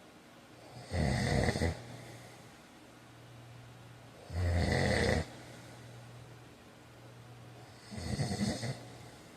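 A man snoring: three loud snores, each lasting under a second and coming about three and a half seconds apart, over a steady low hum.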